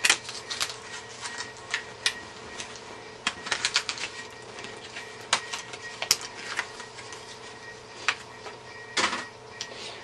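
Irregular sharp clicks and taps of small hard objects being handled, sometimes several in quick succession, with a louder clack about nine seconds in.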